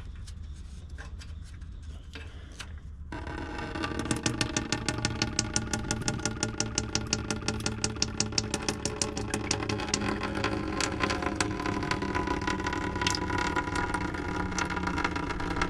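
Diesel draining from the fuel filter housing's drain valve into a bucket, starting suddenly about three seconds in and running steadily with a regular pulsing glug.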